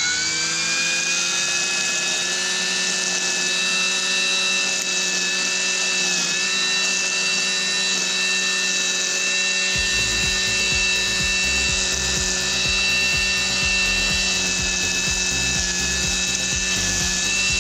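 Kobalt 80-volt cordless electric string trimmer running at steady speed with a high whine, dipping briefly about six seconds in.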